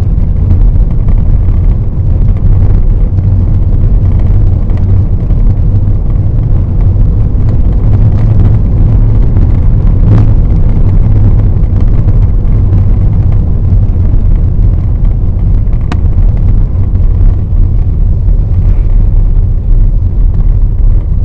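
Loud, steady low rumble of a vehicle on the move, with a few sharp knocks.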